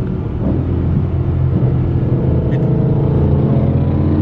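BMW M3 engine running at low revs while the car is driven slowly, heard from inside the cabin; a steady low drone, a little louder from about half a second in.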